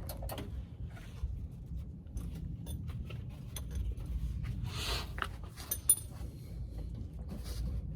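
Scattered light metallic clicks and clinks of truck step-rail mounting hardware being handled and shifted into position. A short scraping rush comes about five seconds in and a sharper click follows just before six seconds, over a low steady background rumble.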